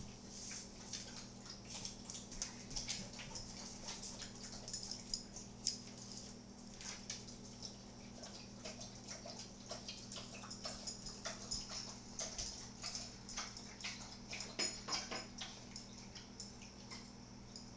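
Irregular light clicks and taps from dogs on a hard kitchen floor and at their bowls, over a steady low hum.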